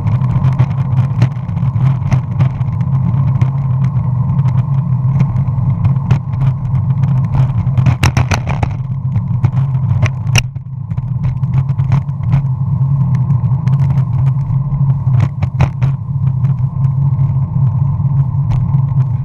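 Longboard wheels rolling on an asphalt path, heard from a camera on the deck: a steady low rumble with many sharp clicks and knocks from bumps in the surface. The rumble drops away briefly about ten seconds in.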